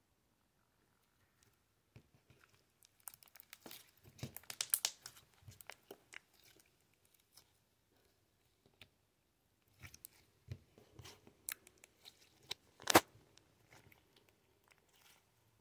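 Glossy slime being stretched, squeezed and kneaded by hand, giving runs of wet clicks and pops in two spells with a short pause between; the loudest pop comes near the end.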